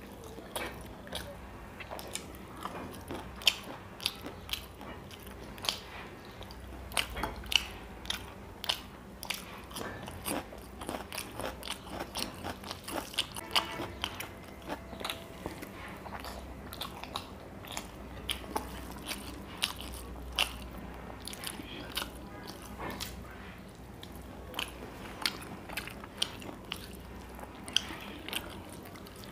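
Close-miked chewing of a man eating rice and curry with his hand, with many irregular sharp smacks and clicks from his mouth.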